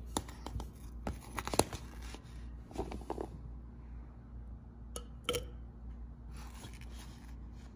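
Metal spoon scooping pomegranate seeds out of a plastic container and tipping them into a plastic blender cup: scattered light scrapes and taps, a few at a time, with quiet gaps between.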